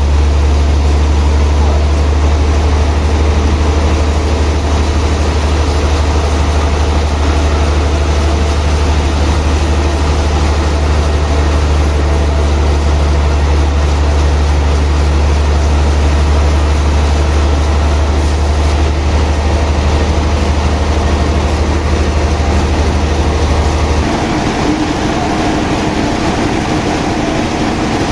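Heavy sawmill machinery running with a steady deep hum under a dense mechanical rattle and clatter. Near the end the deep hum cuts out and the rattle carries on a little quieter.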